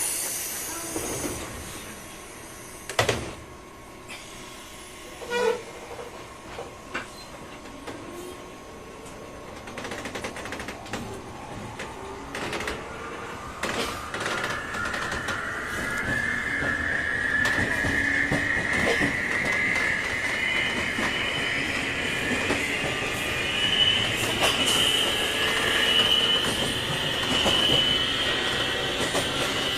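Interior running sound of a JR 201 series thyristor-chopper electric train car, starting with a few sharp knocks. From about ten seconds in, a whine rises steadily in pitch as the car accelerates under power. This is the unusual jet-like powering sound the recordist noted on this car.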